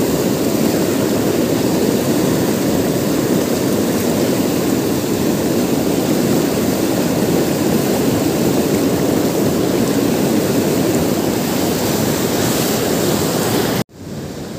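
Fast river water rushing steadily through rapids, a loud continuous rush. It drops off suddenly near the end to a quieter rush.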